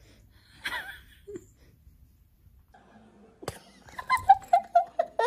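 A person laughing in short, rapid repeated bursts, beginning about three and a half seconds in after a click. Before that there is only a brief faint sound about a second in.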